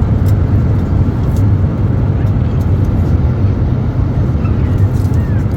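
Steady cabin noise of an Airbus A320neo-family airliner in flight: a constant low drone of engines and airflow, with the aircraft descending from cruise.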